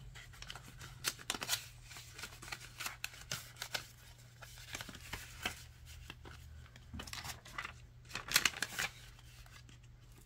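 Paper bills and a clear plastic binder pouch being handled: irregular rustling, crinkling and small taps, loudest about eight seconds in, over a faint steady low hum.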